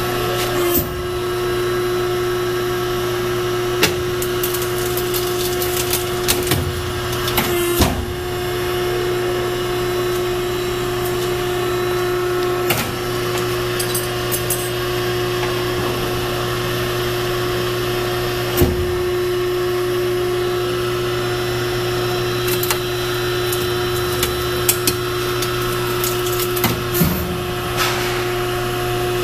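Hydraulic power unit of an MW 808II motor-recycling press running with a steady hum, with sharp metal knocks and clanks every few seconds as the press works on electric motor parts.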